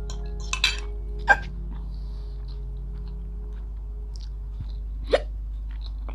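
A woman hiccuping sharply a few times, brought on by eating noodles made very hot with chilli. The loudest hiccup comes about a second in and another near the end.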